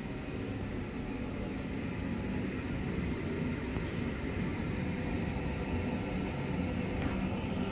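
Steady low rumble of room noise with a faint even hum underneath, no distinct events.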